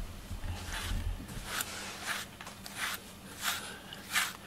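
Fine-wire slicker brush drawn through a cat's fur in repeated strokes, a short dry swish about every half to three-quarters of a second, with low handling bumps in the first second.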